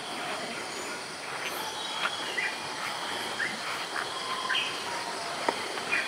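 Tropical morning ambience: a steady drone of insects with several short bird chirps scattered through it, and one sharp click shortly before the end.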